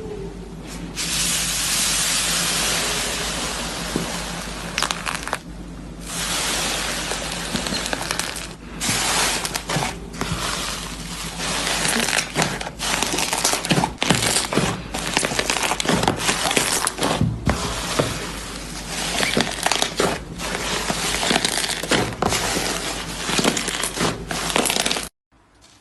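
Slime being squeezed and worked by hand: a dense, crackling hiss with many crunching pops, broken by a few short pauses.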